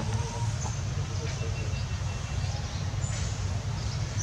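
Outdoor background: a steady low rumble, with a few faint, brief high chirps over it.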